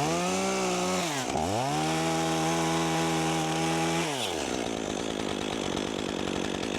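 Chainsaw revving up, dipping once about a second in, then held at full throttle for a few seconds while a branch is cut. About four seconds in the engine drops away, leaving a steady rushing noise.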